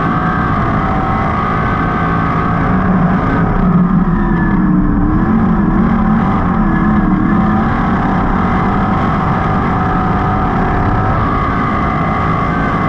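A 305 sprint car's V8 engine running at high revs on the dirt track, heard onboard from the driver's seat. Its pitch dips a little and wavers near the middle, then climbs back and holds steady.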